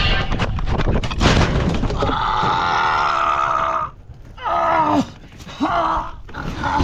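A man tripping and falling hard against a sheet-metal shed wall: a crash about a second in, then a long cry of pain and several shorter groans.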